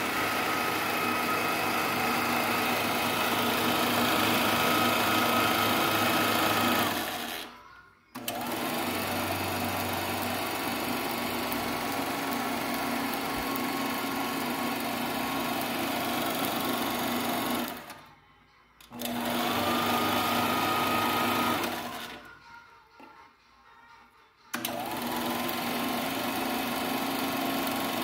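1953 Keystone K-91 8mm film projector running: the motor whines steadily over the clatter of the film mechanism. Three times it is shut off and runs down, then starts again with the motor whine rising back up to speed.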